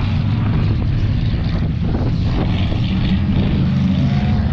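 Engines of several old cars racing around a dirt course, a steady low rumble.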